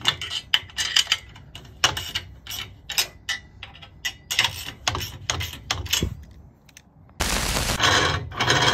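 Nuts on the U-bolts of a keel roller bracket being tightened onto a steel boat trailer frame: a run of sharp metal clicks and taps, then near the end a power impact tool hammering for about a second and a half.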